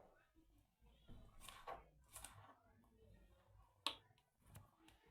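Knife cutting onions on a chopping board: a few faint cuts, then one sharper knock of the blade on the board about four seconds in.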